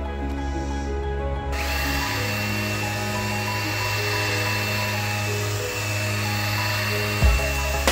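Background music plays throughout. About a second and a half in, a cordless drill fitted with a foam polishing pad starts up and runs steadily with a high whine, buffing car paint. A couple of low thumps come near the end.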